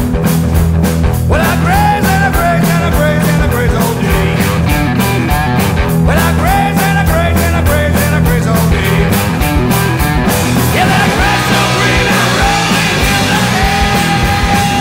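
Blues-rock trio playing: electric guitar, bass guitar and drums, with a lead line bending up in pitch and held, and a wash of cymbals from about ten seconds in.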